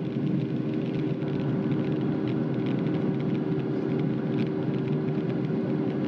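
Steady cabin noise of an airliner in flight: a constant rush of engine and airflow with a low, even hum.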